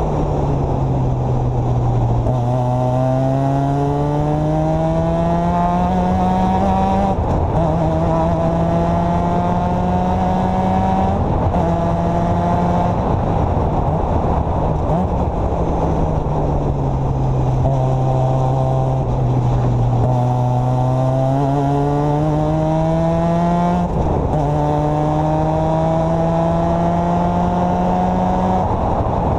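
Formula Mazda's 13B two-rotor rotary engine, heard onboard, pulling hard through the gears: the pitch climbs and drops back at each upshift, falls away for a corner about halfway through, then climbs through the gears again. Heavy wind and road noise run underneath.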